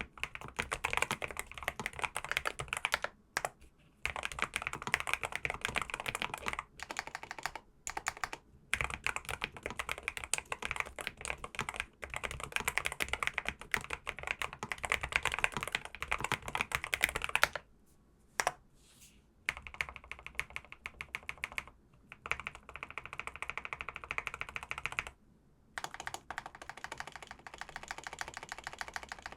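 NuPhy Kick75 mechanical keyboard in its low-profile build being typed on fast and steadily, a dense run of key clicks broken by a few short pauses, the longest about two seconds just past the middle.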